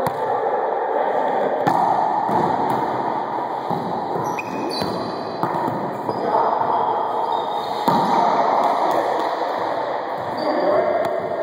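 Wallyball rally: the rubber ball smacks off hands, walls and the wooden floor again and again, with each hit echoing in the enclosed court. A few short high squeaks, like sneakers on the floor, come about halfway through.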